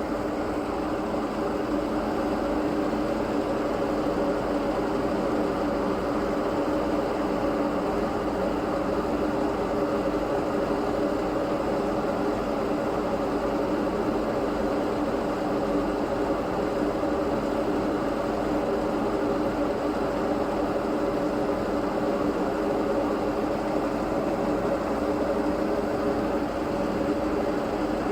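A spinning propeller: a steady whirring hum with several droning tones, holding one speed throughout.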